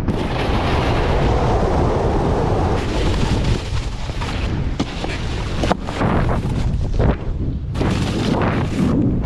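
Wind buffeting an action camera's microphone while a snowboard slides and scrapes across firm snow at speed, with a few sharp knocks and scrapes in the second half.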